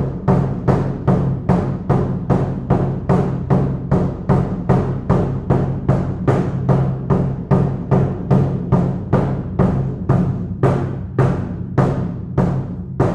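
Shamanic frame drum struck with a beater in a steady, even beat of about three strokes a second, its low tone ringing on between strokes.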